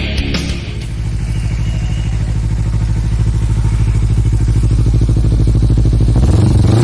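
Kawasaki Z250 motorcycle engine idling through an aftermarket Kimoto Superbike slip-on muffler, a steady, evenly pulsing exhaust note. Near the end the throttle is blipped and the note starts to rise. A rock music intro fades out in the first second.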